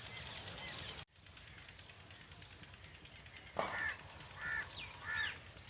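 Birds chirping, broken off by an abrupt cut about a second in; from about halfway a bird gives several loud, harsh calls in a row.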